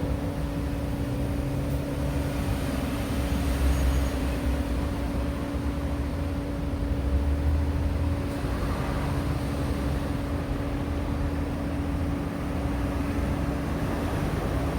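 Road traffic rumble that swells and eases as vehicles pass, over a steady low hum.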